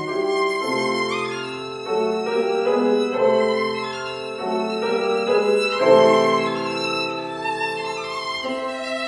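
A violin playing long held notes with vibrato, accompanied by grand piano chords that change about every second.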